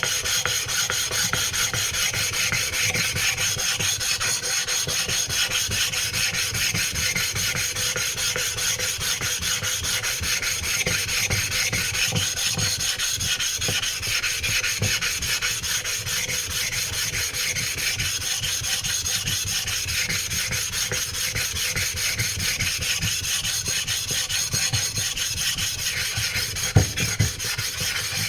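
A 200-grit flattening stone scraping back and forth over a wet 320-grit whetstone, a continuous gritty rasp as it grinds the uneven face flat. A single sharp knock sounds near the end.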